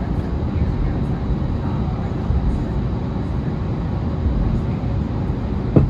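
Steady low rumble inside the cabin of an Airbus A320neo-family airliner on the ground or under way, its engines and airframe making an even noise with no spool-up. A single short knock sounds near the end.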